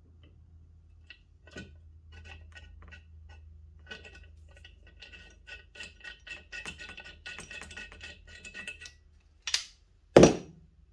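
Hand riv nut tool setting a rivet nut into a steel bracket: a run of quick, light metallic clicks that ring briefly, growing denser in the middle, then two louder knocks near the end, the second the loudest.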